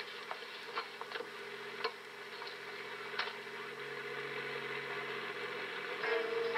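Bell 206 JetRanger helicopter running on the ground with its turbine and rotor going, a steady drone that slowly gets louder as it readies for lift-off. A few sharp clicks and knocks sound in the first few seconds.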